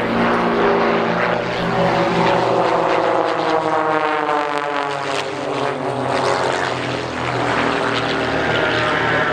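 Several propeller-driven aerobatic planes flying a low formation pass, their engines droning together. The engine pitch falls steadily about three to six seconds in as they go by.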